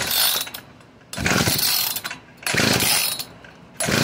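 Recoil starter rope of a Tecumseh TC II two-stroke auger engine being pulled hard, about three pulls a little over a second apart, each a rough whirring crank that dies away in the gap without the engine catching. It is a cold start on full choke with the throttle open, on a newly fitted carburetor and fuel line.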